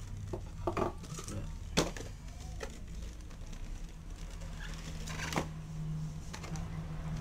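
A cardboard box and clear plastic camera case handled and pulled apart, with scattered clicks and knocks. The sharpest knock comes about two seconds in, another near five and a half seconds, over a steady low hum.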